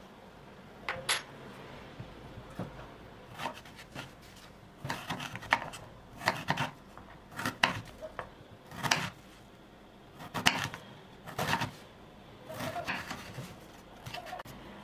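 A series of irregular knocks and clatters, some coming in short clusters.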